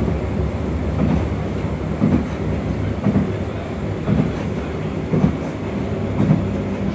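Tram running, heard from inside the car: a steady low hum from the traction motors over the rumble of the wheels on the rails, with irregular low knocks about once a second.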